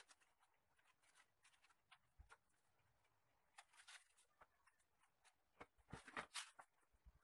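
Faint rustling of artificial plastic leaf garlands being handled, in short crackly bursts, with a few light knocks as the decorated wooden stand is shifted.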